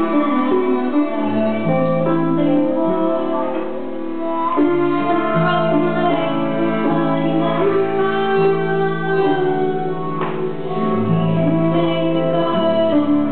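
Live acid-folk band playing: violin, concert harp, electric guitar and acoustic guitar, with long held notes over a low line that changes pitch every second or two.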